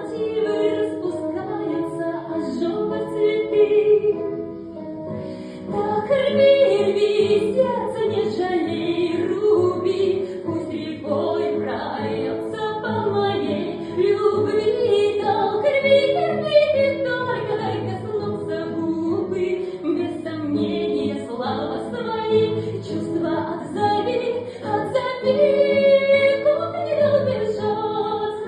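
A woman singing a song over musical backing.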